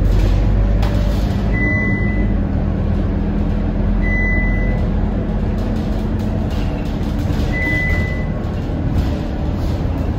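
Scania K230UB Euro V single-deck bus running, a steady low engine and road noise heard from inside the cabin, with three short beeps about 2, 4 and 8 seconds in.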